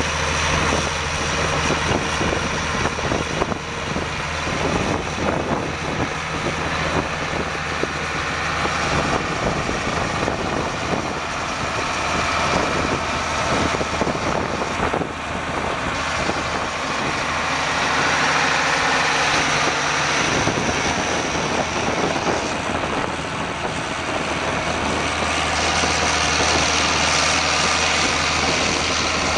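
International 3588 tractor's 7.6-litre six-cylinder turbo diesel running steadily as the tractor is driven slowly around, growing a little louder about two-thirds of the way through.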